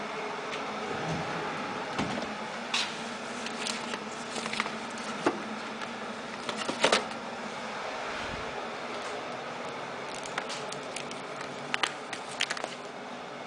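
A cupboard being opened and a coffee-mix pouch and a chocolate box being taken out and put down on a counter: scattered clicks, knocks and crinkles over a steady hiss, the loudest clicks just before the middle.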